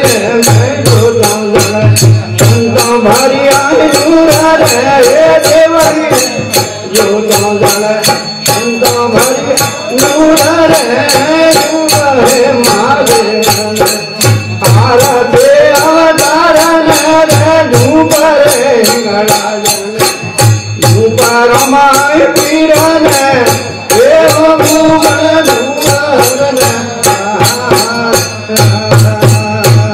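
Rajasthani devotional folk music: a strummed tandura drone with manjira hand cymbals clashing in a fast, even beat over a low drum pulse, and a melody that rises and falls in repeated phrases.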